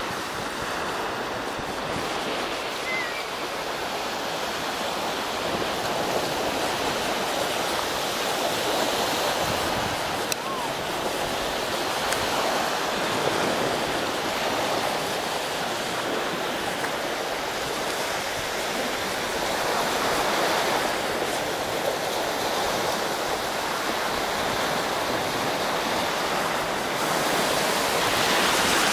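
Steady rushing noise that slowly swells and eases, with no distinct events.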